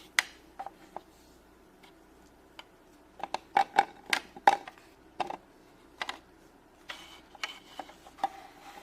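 Small hard plastic toy pieces being handled: a series of sharp clicks and taps as a toy fridge playset's parts and tiny Shopkins figures knock together, thickest about three to five seconds in.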